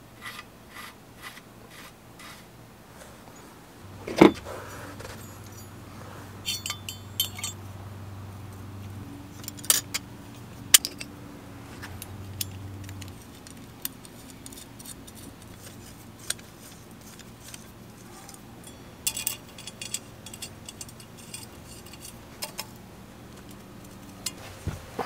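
Small steel chainring bolts clinking and jingling against each other, a metal parts dish and aluminium chainrings as they are picked out and fitted to a crankset, in scattered light metallic clicks. A single sharp knock about four seconds in is the loudest sound.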